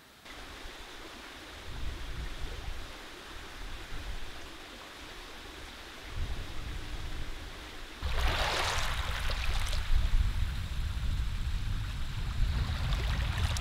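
Small waves washing onto a pebble shore over a low rumble of wind on the microphone. A louder rush of surf comes about two-thirds of the way in, and the water and wind then stay louder.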